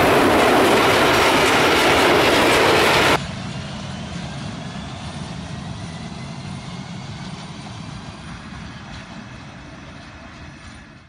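Loud, steady rushing rumble of a train passing close by, cut off abruptly about three seconds in. After the cut, a DB Class 151 electric locomotive runs away into the distance, its sound quieter and fading steadily, with faint thin whining tones.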